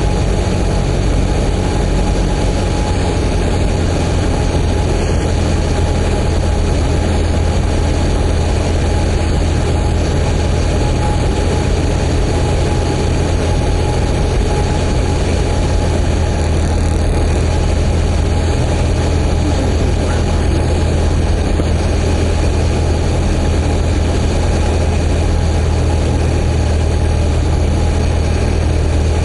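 Cessna 172P Skyhawk's four-cylinder Lycoming piston engine and propeller running at a steady, even drone with a deep hum and a thin steady whine, without change.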